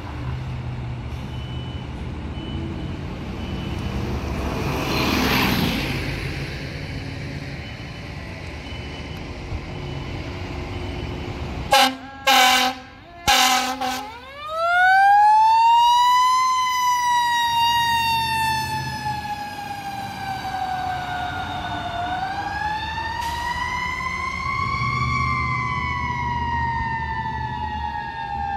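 Road traffic passing, then a fire engine's air horns give a few short blasts about twelve seconds in. Its siren then winds up and wails, rising and slowly falling in pitch twice.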